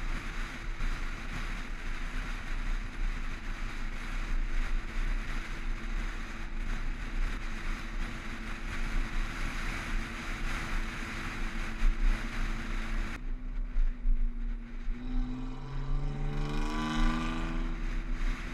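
Wind rushing over a hood-mounted camera's microphone, with the rumble of a Jeep Wrangler JK driving on a paved road. About thirteen seconds in the rush cuts off suddenly, and a short run of tones stepping upward in pitch follows.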